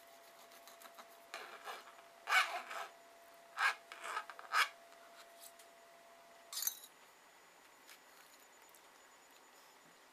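Kitchen knife sawing through a baked banana butter cake, a series of short rasping strokes as the blade cuts the crust and scrapes the cutting board, then one brief scrape a little later.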